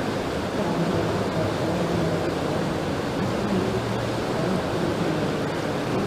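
Whitewater of a canoe slalom course rushing steadily.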